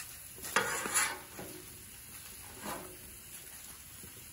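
Metal spatula scraping across a Blackstone flat-top steel griddle: a longer stroke about half a second in and a shorter one a little past halfway, with faint sizzling between them.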